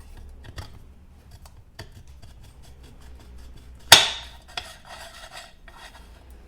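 Small metal bandsaw parts and hand tools being handled during reassembly: light clicks and rattles, with one sharp metallic clink about four seconds in.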